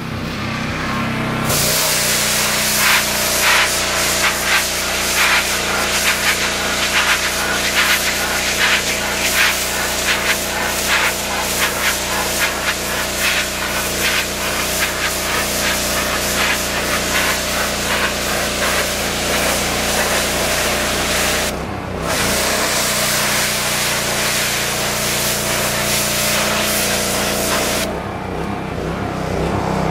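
Commercial pressure washer spraying a jet against porch steps to strip mold and mildew, a steady hiss over the hum of its motor and pump. The spray stops briefly twice, about two-thirds through and again near the end, leaving only the machine running.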